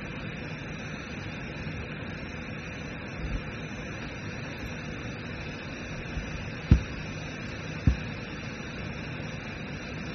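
Steady hiss and faint hum of an open call microphone in a quiet room, with two short low thumps about a second apart in the second half.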